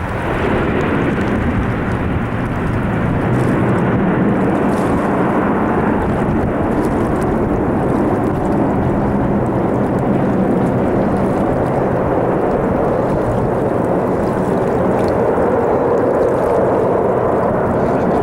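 ATR 72-600's twin turboprop engines and propellers running loud and steady, setting in just at the start and holding throughout with a low, even hum under the noise.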